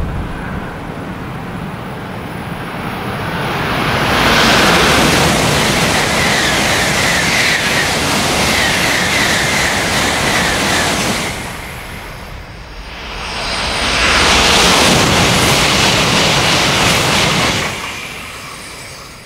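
Shinkansen N700 series train passing through a station at high speed, about 300 km/h: a rushing noise that swells about four seconds in and holds for about seven seconds, with a quick string of short rising chirps over it. After a brief dip a second high-speed pass rushes by and fades near the end.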